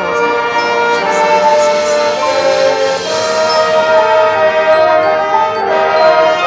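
A high school marching band's brass section playing loud, held chords that change a few times.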